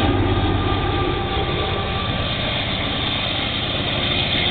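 Union Pacific diesel freight locomotive passing close by, its engine running with a steady low hum over the rumble and clatter of the train's wheels on the rails.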